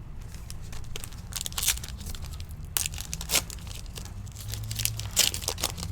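A Donruss Elite Football trading-card pack wrapper being torn open and crinkled, in several short, scratchy bursts.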